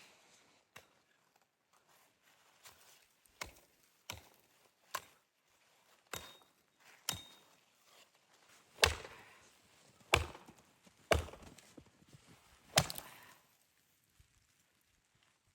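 Wood being chopped with a hand tool: about a dozen sharp blows, roughly one a second, the heaviest ones in the second half.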